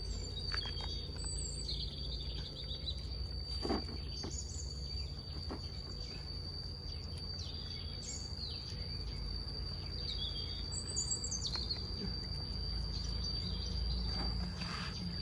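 Birds chirping now and then over a steady high insect drone and a low background rumble, with an occasional faint click.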